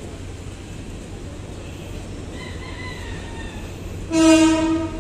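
A PNR train running with a low, steady rumble. About four seconds in, its horn gives one short, loud single-note blast.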